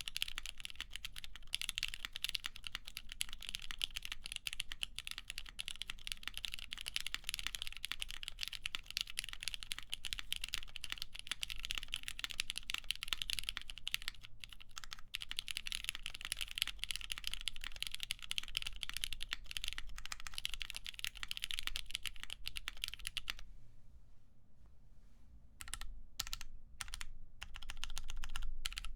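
Fast, continuous typing on a mechanical keyboard with lubed Cherry MX Black linear switches in an aluminum plate, under GMK keycaps. About three-quarters of the way through the typing stops for a couple of seconds, then a few separate keystrokes lead back into steady typing near the end.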